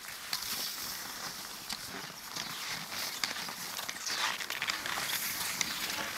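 Cross-country skis sliding and ski poles planting in cold, dry snow: a steady hiss with irregular short crunches and clicks, and one longer swish about four seconds in.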